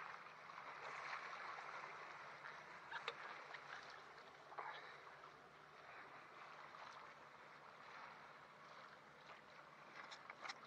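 Faint rush of sea water along a sailboat's hull, with a few brief splashes and ticks.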